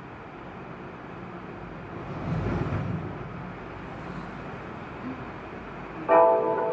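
Low background noise, with a deep rumble swelling and fading away about two to three seconds in; music with held notes starts near the end.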